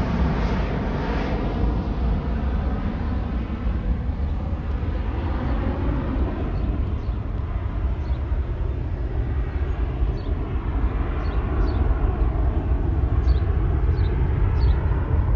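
Jet engine noise of a Delta Airbus A330 climbing away after takeoff, fading over the first few seconds into a lingering low rumble as it recedes. Small birds chirp briefly several times from about halfway in.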